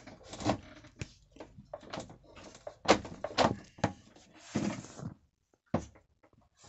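Irregular knocks, clicks and rustling as a cable is pulled through by hand, rubbing and knocking against the cabinet woodwork and engine compartment; the sharpest knocks come about three seconds in.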